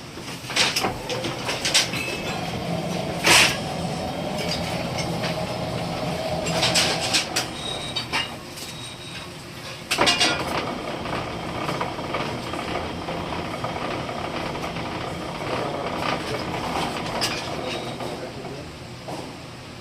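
Machinery running with a steady hum, broken by sharp knocks and clanks every second or two, the loudest about three seconds in and again about ten seconds in.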